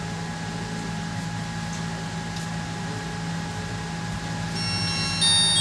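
A steady hum, then, about four and a half seconds in, a Lava keypad phone's power-on tune starts as it boots: a run of bright, clear chime notes.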